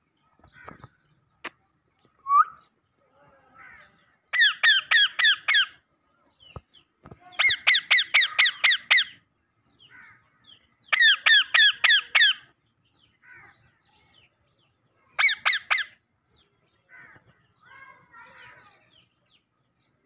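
Green ringneck (rose-ringed) parakeets calling in four quick runs of shrill, rapidly repeated notes, with softer chatter between the runs.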